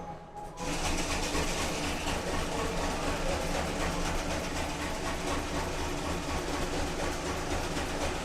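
Steady mechanical running noise with a fast, even low throb, like a vehicle or train running.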